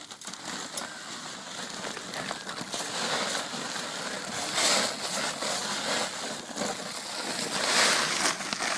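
Crushed glass shards being scraped and scooped by a gloved hand from a glass crusher's outlet into a woven plastic sack: gritty clinking and scraping with the sack crinkling. It grows louder, with the busiest moments about halfway through and near the end.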